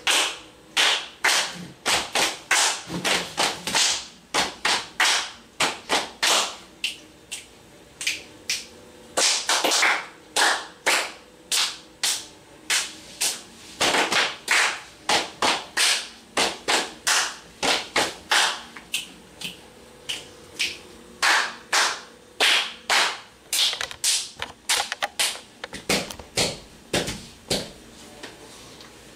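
Body percussion: a long run of sharp hand claps and slaps, played in quick clusters with short pauses between them.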